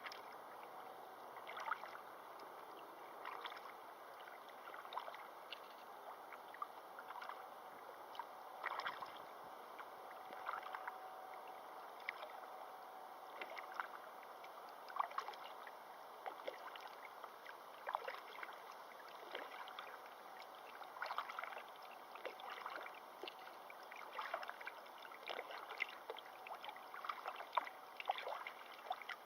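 Faint river water lapping and splashing, with many small irregular splashes over a steady wash.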